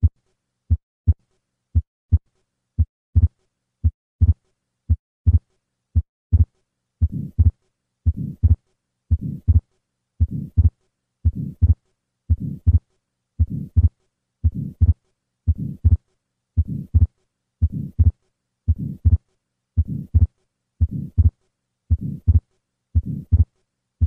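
Recorded heartbeat of a patient with an atrial septal defect, about one beat a second. The first beats are short, sharp heart sounds; about seven seconds in, a longer sound joins each beat: the systolic flow murmur across the pulmonic valve, which with the fixed split second heart sound marks the defect.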